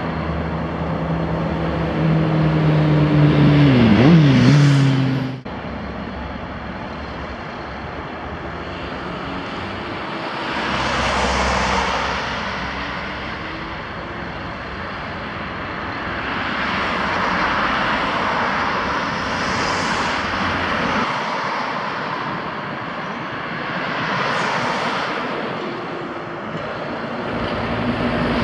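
An engine running, its pitch wavering up and down for a few seconds before the sound cuts off abruptly. After that comes a steady outdoor mechanical noise that swells and fades several times.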